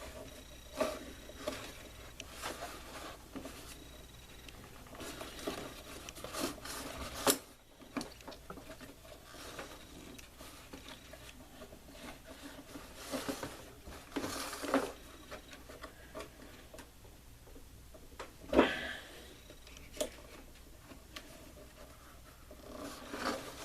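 Scattered handling noise of a tight-fitting 12V/USB socket being worked and pried in its hole in a metal ammo can: clicks, scrapes and light knocks, with a sharper knock about eighteen seconds in.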